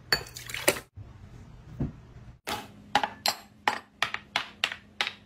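Glass prep bowls knocking and clinking on a wooden counter as ingredients are set out, with a quick run of sharp taps, about three a second, in the second half.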